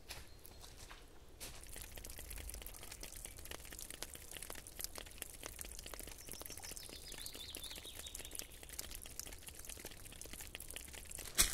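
Quiet forest ambience with faint, steady crackling and ticking. About two-thirds of the way through, a distant bird gives a faint whistle that slides slowly down in pitch. Near the end there is a single louder crunch.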